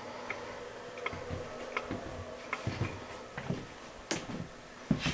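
Footsteps of someone walking across a motorhome's floor: a soft thud about every three-quarters of a second, each with a light click, then a sharper knock near the end.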